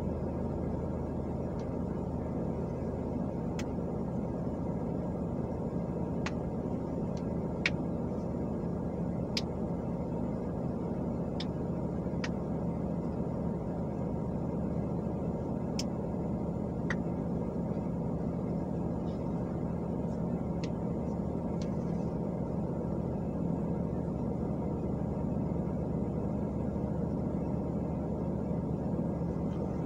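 Steady low rumble of a car stopped and idling at a traffic light, with crossing traffic passing ahead. A few faint clicks are scattered through it.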